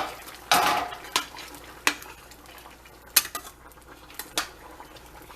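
A utensil clinking and scraping against a cooking pot while stirring. There is a longer scrape early on, then several separate clinks spaced a second or so apart.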